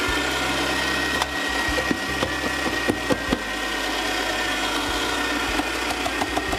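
Breville Smart Grinder Pro's motor-driven conical burrs grinding a few extra coffee beans: a steady whine over a grinding noise, with scattered sharp cracks of beans breaking.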